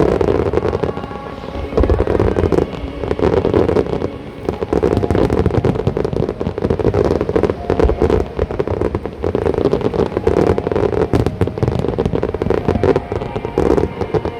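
Aerial fireworks going off: dense, continuous crackling, with low booms from shell bursts.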